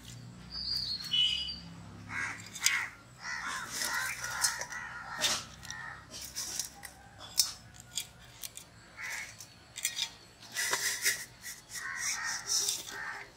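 Crows cawing repeatedly, in two clusters of calls, mixed with light knocks and clicks from handling steel cookware.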